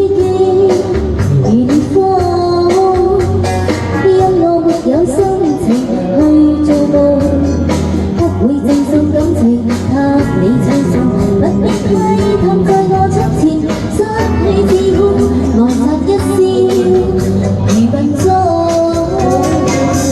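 Cantonese pop song with a woman singing the melody over a backing track and a steady bass line.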